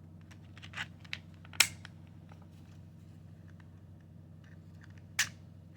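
A few small clicks and taps of 3D-printed plastic parts being handled and fitted together, the sharpest about one and a half seconds in and another near the end, over a steady low hum.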